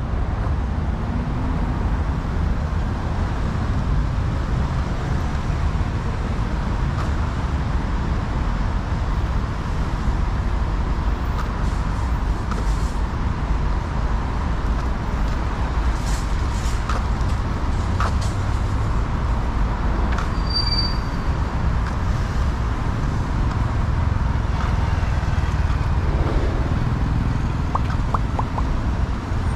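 Steady city street traffic noise: an even low rumble of passing cars and buses, with a few faint clicks.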